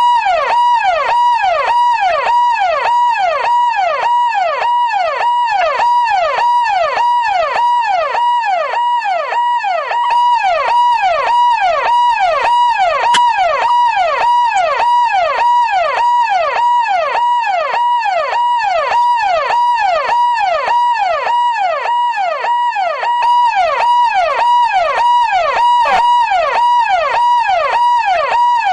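Siren in a fast yelp: its pitch rises sharply, holds for a moment, then falls, over and over in a quick, even cycle.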